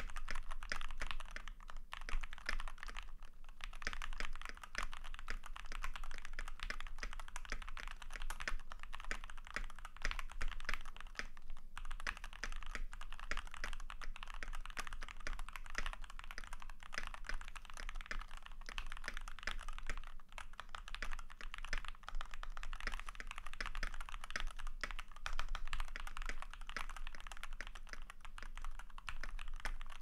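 Steady fast typing on a modded Keychron V4 60% mechanical keyboard: lubed Keychron K Pro Red linear switches in a steel plate, with PBT keycaps, lubed TX stabilizers, and tape mod, polyfill and switch pads damping the case. It produces a dense run of key clicks with a few brief pauses.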